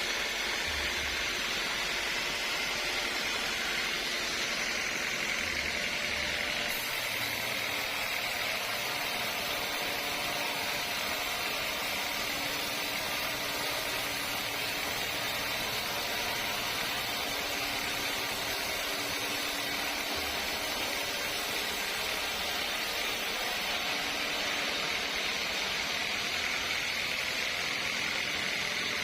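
Sawmill machinery running steadily, a constant mechanical hiss and hum that holds the same level throughout.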